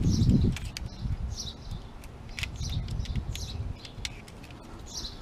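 Small birds chirping in short calls about once a second, with faint clicks and scrapes from a utility knife trimming tint film along the edge of a car window. A low rumble dies away about half a second in.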